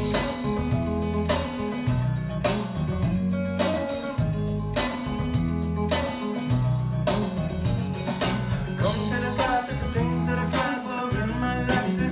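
Recorded rock/blues-style song playing: guitar over bass and a steady drum beat.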